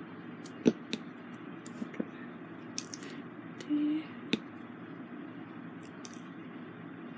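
Small sharp clicks and taps of a diamond painting drill pen picking up resin drills and pressing them onto the canvas, several in irregular succession, over a steady background hiss. A brief low hum comes just before four seconds in.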